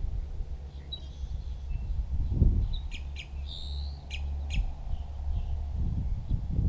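Wild birds calling: a cluster of short, sharp, high chirps and one higher, drawn-out call about three to four and a half seconds in, with a few fainter chirps around them, over a steady low rumble.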